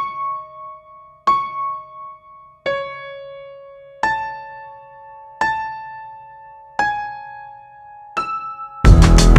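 Background music: soft piano chords struck seven times, about a second and a half apart, each ringing out. Loud, full music with a beat cuts in near the end.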